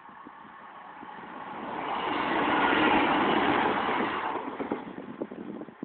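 A vehicle passing close by: its noise swells for about two seconds to a peak and then fades away.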